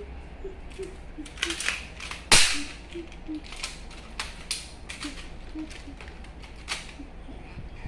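Plastic magnetic building tiles clicking and clacking as they are handled and snapped together: irregular sharp clicks, with one louder clack about two and a half seconds in.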